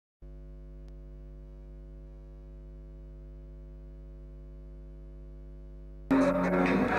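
A steady electrical hum with many evenly spaced overtones, then music cuts in abruptly near the end.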